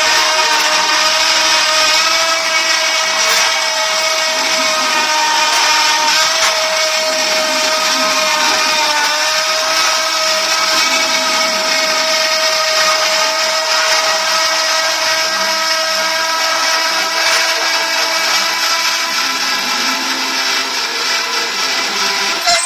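CNC router spindle running at speed with a steady high whine while it cuts, over a constant hiss of milling noise.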